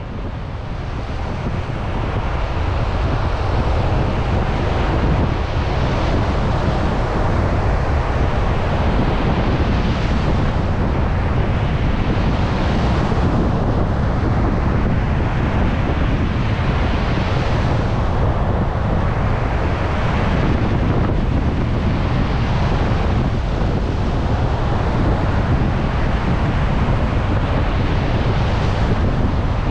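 Heavy surf on a stormy beach, waves breaking and washing back every few seconds, over a constant low rumble of strong wind buffeting the microphone.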